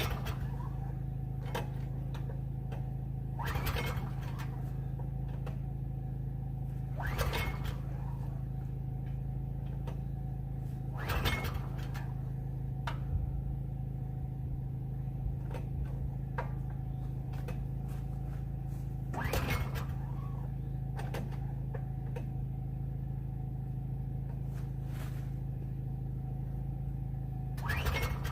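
Recoil pull-starter on a Subaru small engine being yanked about six times, a few seconds apart, each pull a short whirring sweep, without the engine catching; the engine fails to start. A steady low hum runs underneath.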